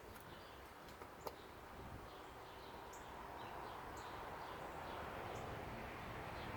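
Faint outdoor background with small birds chirping now and then, a single sharp click a little over a second in, and a low rushing noise that slowly grows louder.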